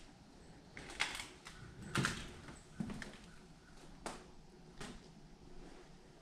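Footsteps on a littered, fire-damaged floor: a handful of short crunching footfalls, roughly a second apart.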